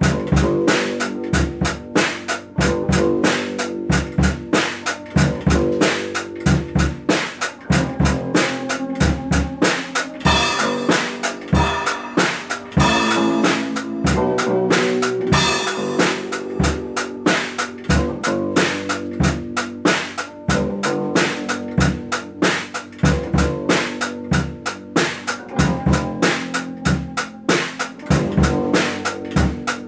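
Music driven by a drum kit playing a steady beat of kick and snare over sustained lower tones, growing brighter and fuller from about ten seconds in.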